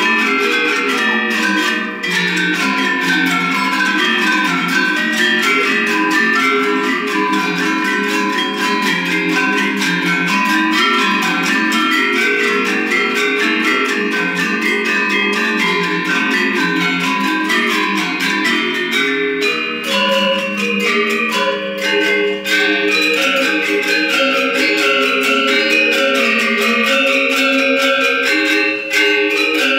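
Gender wayang ensemble: Balinese bronze-keyed metallophones with bamboo resonators, struck with mallets in fast interlocking note patterns. The texture changes about two-thirds of the way through, with longer held notes joining the lower register.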